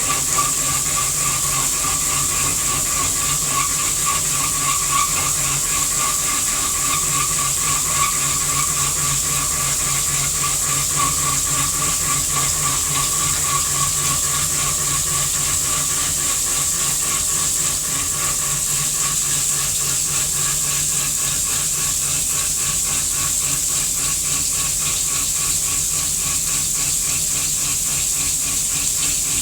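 Haas CNC vertical machining center running a cut: a steady hiss of coolant spray over the machine's running noise, with a steady high whine that eases a little about two-thirds of the way through.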